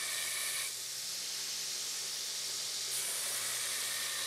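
Belt grinder running with a forged Damascus steel knife blade pressed against the belt: a steady high hiss of steel being ground over the motor's low hum. This is rough grinding of the blade's profile before heat treatment. The grinding hiss eases off about a second in and picks up again near three seconds.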